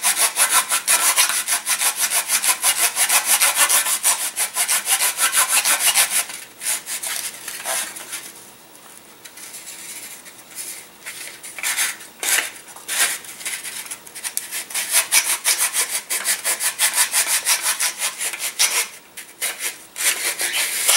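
Sandpaper rolled onto a carbon tail boom, rasping back and forth inside the rear opening of a wooden fuselage as it sands the opening out to size. Fast, steady strokes for about six seconds, then quieter, intermittent strokes with pauses.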